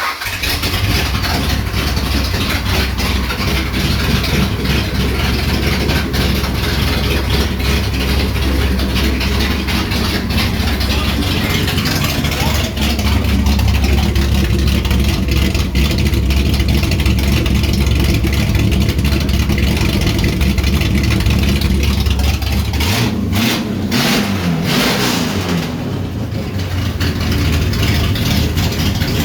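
Rebuilt V8 of a 1967 Dodge Charger, just fired up for the first time after the rebuild, running at a fast, steady speed. About 23 seconds in the deep rumble drops away and the pitch sweeps for a few seconds before the engine steadies again.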